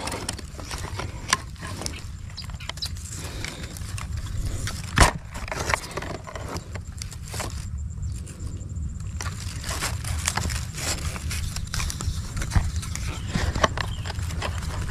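An airgun firing a fishing dart: one sharp crack about five seconds in, over a low steady rumble with scattered small clicks and crackles.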